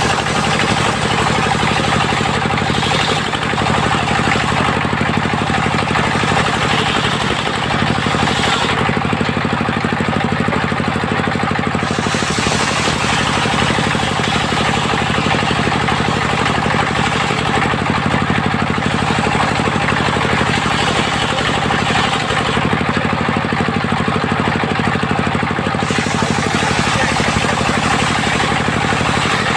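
Engine-driven circular sawmill running steadily, its engine sound unbroken and even in level throughout.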